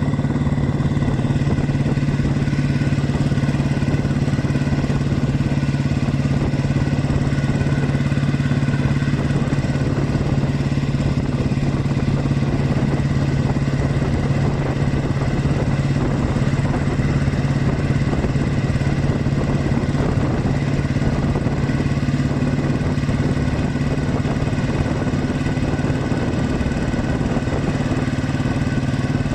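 Restored motorcycle engine running steadily at an even pitch while being ridden, with a low rumble of wind underneath.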